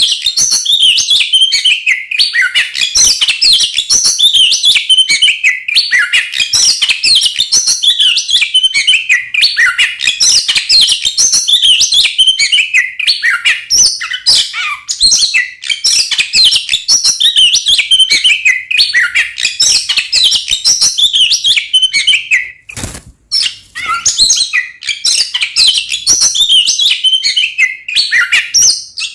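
Oriental magpie-robin (kacer) singing loudly and without pause, a fast run of varied chirps and whistles, with a brief break about 23 seconds in.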